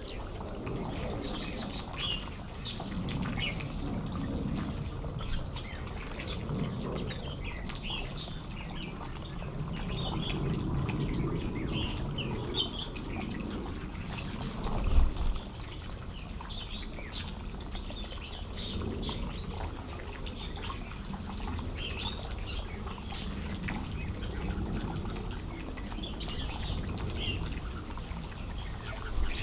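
Bulbuls calling in short chirps scattered throughout, over low splashing and dripping water; a single dull thump about halfway through.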